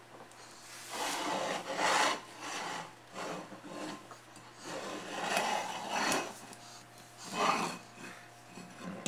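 A toddler's hand rubbing and scraping at an empty pet bowl on a tile floor, in several strokes of about a second each.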